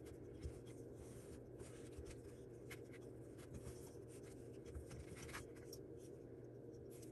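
Faint rubbing and scattered light ticks of yarn being drawn and wrapped around the pegs of a wooden oval sock loom, over a low steady room hum.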